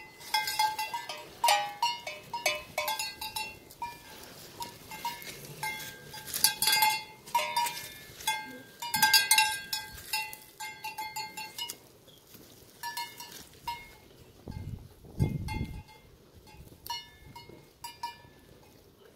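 Sheep's cencerro (metal neck bell) clanking in irregular clusters as the ewe wearing it moves about. It is busy for the first twelve seconds and sparser after.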